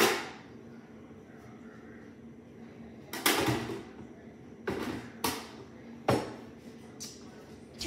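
A series of knocks and bangs from out of the picture: one sharp knock, then about three seconds later five more spaced roughly half a second to a second apart, the first of these longer and the last fainter. A faint steady hum runs underneath.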